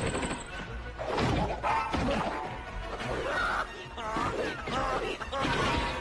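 Animated film soundtrack of a dodgeball game: background music with rubber balls whacking and thumping, over bursts of cartoon voices.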